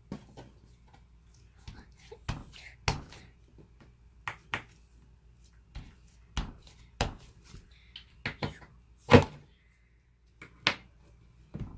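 Blue slime being pressed, pulled and patted by a child's hand on a tabletop, giving irregular sharp sticky pops and smacks, about a dozen in all, the loudest about nine seconds in.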